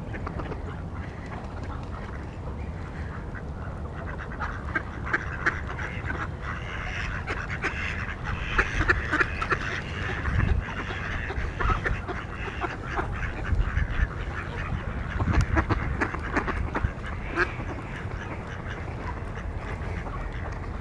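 A flock of mallards quacking, many short overlapping calls that start about four seconds in, busiest in the middle and thinning toward the end.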